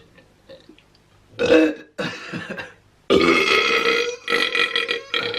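Loud deliberate burps: a short one about a second and a half in, then two long drawn-out burps back to back from about three seconds in.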